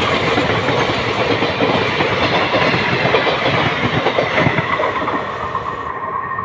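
Express passenger train running at speed, heard from an open coach doorway: loud rushing noise and the clatter of wheels over the rail joints, with a faint steady high whine underneath.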